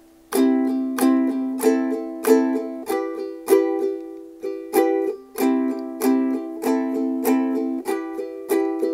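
Ukulele instrumental break: strummed and plucked strings at an even quick pace, about three strikes a second, starting after a brief lull.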